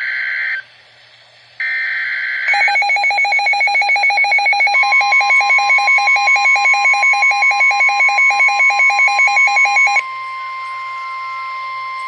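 Two short screeching bursts of NOAA Weather Radio SAME header data. Then a weather radio's rapid pulsing alert beeps start, joined a couple of seconds later by the steady long warning alarm tone. The beeping stops about ten seconds in and the steady tone carries on alone: the alert signal opening a new warning broadcast.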